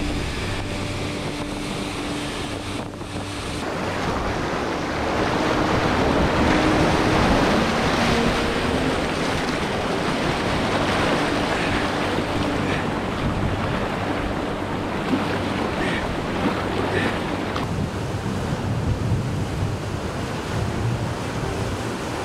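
Whitewater rapid rushing, with wind buffeting the microphone. It grows louder about four seconds in.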